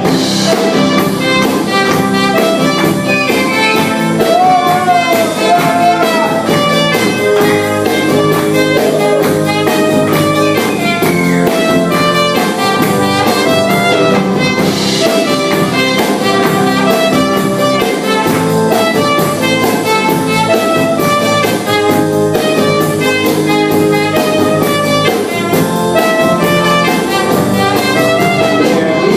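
Instrumental break of a band's song: a lead melody line over a drum kit keeping a steady beat, with no singing.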